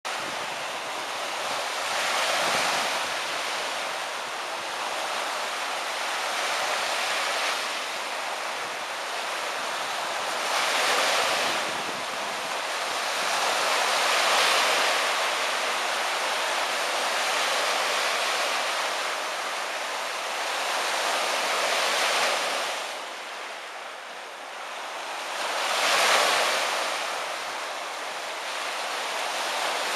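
Small lake waves washing onto the shore, a steady rush of water that swells and fades every few seconds as each wave breaks.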